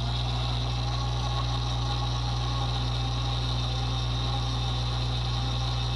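Toy mini washing machine's small electric motor running steadily with a beauty blender sponge inside, a constant hum with a thin high whine. The lighter load of the smaller sponge lets the motor run without struggling.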